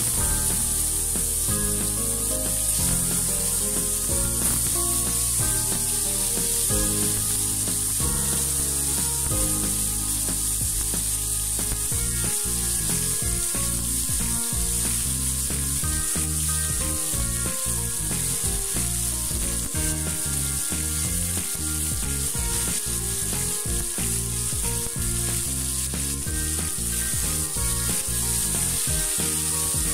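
Eggplant pieces sizzling steadily as they fry in hot oil in a wok, turned now and then with a spatula. Background music plays underneath.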